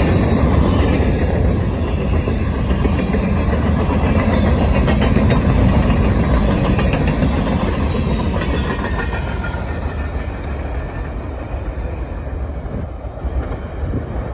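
Freight cars, covered hoppers and tank cars, rolling past close by: a steady rumble of steel wheels on rail with clattering clicks over the joints. It fades over the last few seconds as the end of the train moves away.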